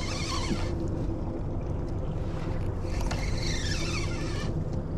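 A boat's motor running with a steady low drone.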